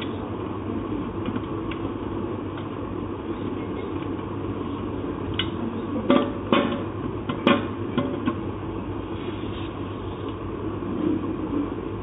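Small metal clicks and knocks from a screwdriver and the bare typewriter mechanism being handled. A cluster of sharper knocks comes about six to eight seconds in, as the screwdriver is put down on the typewriter's case. A steady hum runs underneath.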